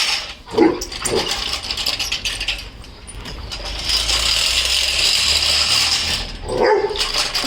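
Lawnmower running over grass with a fast, steady ratcheting click. A dog makes short vocal sounds about half a second in, again at about a second, and near the end.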